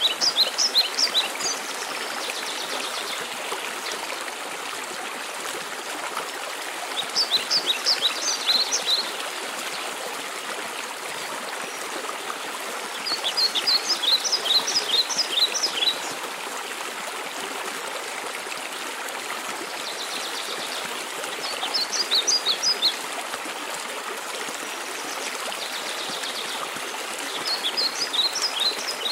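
Steady rush of a waterfall, with a songbird singing five short phrases of quick high notes, one about every six to seven seconds.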